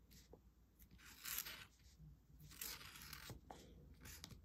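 Faint strokes of a felt-tip Sharpie marker on paper, a few short scratchy swipes as a word is written.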